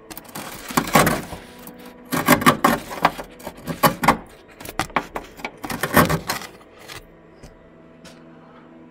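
A metal rod scraping and knocking against rusted sheet steel on a Mercedes's underbody, in a series of loud scratchy bursts that stop about seven seconds in.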